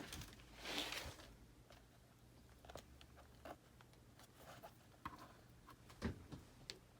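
Faint paper rustling and a few light taps as a needle and thread are worked through the sewing holes of a journal's paper signature. There is a short soft rustle a little under a second in, then scattered small clicks.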